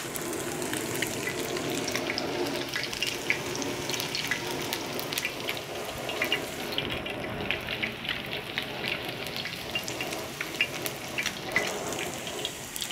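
Beer-battered fish strips deep-frying in hot oil: a steady sizzle with many small crackles and pops.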